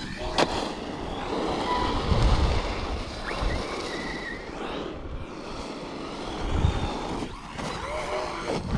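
Wind buffeting the microphone over a brushless Arrma Mojave 4S RC truck running on a 5S battery, its motor giving short whines and rises in pitch as it is driven. A sharp knock about half a second in.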